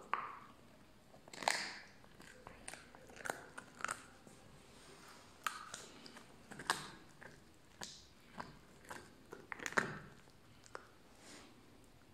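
A puppy gnawing and chewing on a large bone: irregular crunches and scrapes of teeth on bone, with the sharpest crunches about a second and a half in and again near the ten-second mark.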